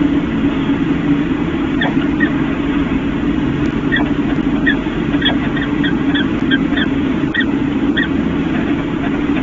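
Steady low machinery drone, the constant hum of the refinery around the nest microphone, with about a dozen short high chirps, some in quick pairs, scattered over it from about two seconds in.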